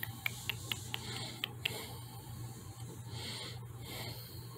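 Cat crunching a treat from a hand: a quick run of light crunching clicks in the first second and a half, over a steady low hum.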